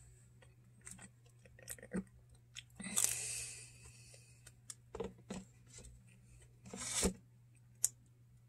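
Someone eating a slice of pizza close to the microphone: scattered mouth clicks and chewing, with a longer rustling bite about three seconds in and a shorter one near seven seconds.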